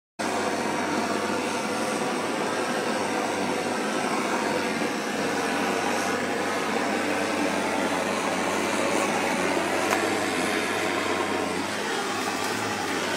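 Gas roofing torch burning with a steady rushing noise as its flame heats asphalt roofing membrane, melting the bitumen at the overlap so the sheets bond.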